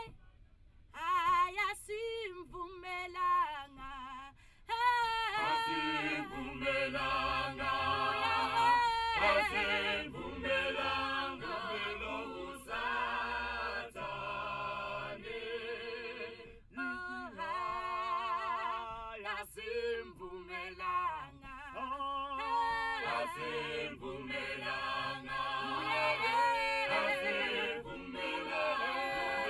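A small mixed-voice choir singing a cappella in close harmony. A single voice carries the first few seconds, and the full group comes in about six seconds in.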